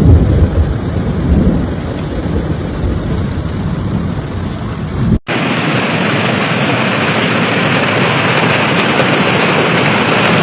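Rushing water noise from flood footage: a loud, low rumble for about five seconds, then after an abrupt cut a steady, even hiss of heavy rain or fast-flowing water.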